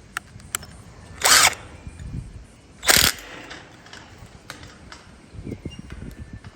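Ozito PXC 18V cordless impact driver run in two short bursts, a little over a second in and about three seconds in, with small clicks and knocks of handling between them.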